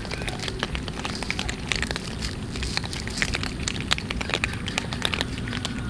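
Several cats crunching dry kibble at once: a dense, irregular stream of crisp crunches and clicks.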